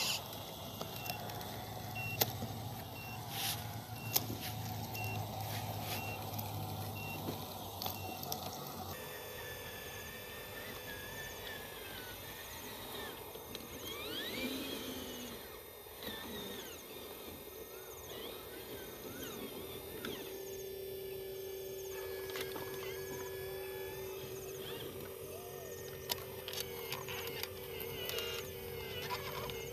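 Small electric gear motors of radio-controlled construction models whining as they work: first a tracked RC bulldozer pushing dirt, with a high beep repeating about three times every two seconds and a few sharp clicks. After about nine seconds come steady motor whines of RC excavators and a dump truck, with some rising and falling whines as the machines move.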